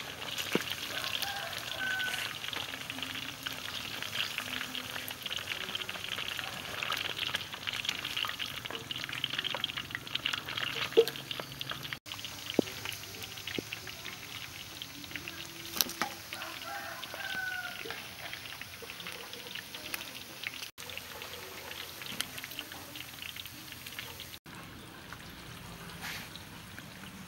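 Chicken wings deep-frying in hot oil in a wok: a dense, steady crackling sizzle for about the first twelve seconds, then quieter after a cut, with scattered light clicks.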